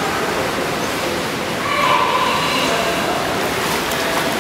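Steady rushing water noise at a swimming pool.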